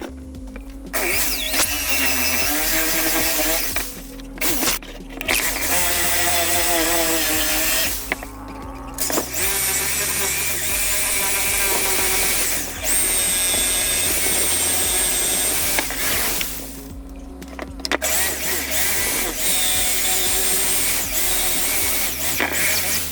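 A power tool running in four bursts of a few seconds each, with a high whine in some of them, over background music.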